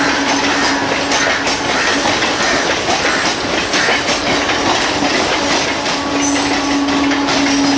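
Suburban electric multiple unit trains running past, their steel wheels clattering steadily over rail joints and points with a continuous rolling rumble. A steady hum fades out early and comes back about six seconds in.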